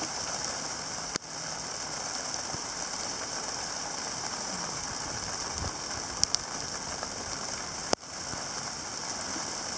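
Steady rain from a heavy convective shower with large drops, a constant hiss, with a few sharp clicks of drops striking close by.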